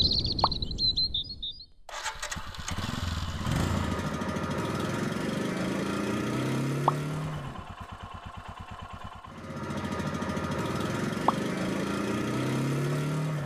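Motorcycle engine accelerating, its pitch rising in repeated sweeps. About midway it drops back to an uneven idle putter, then revs and accelerates again, with a sharp click during each acceleration. A short high chirping, like birds, comes just before the engine starts.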